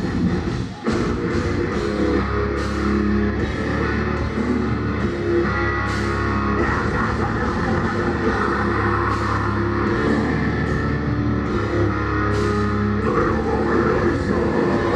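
Deathcore band playing live: distorted guitars, bass and drum kit. The band breaks off for a moment about a second in, then comes straight back in at full volume.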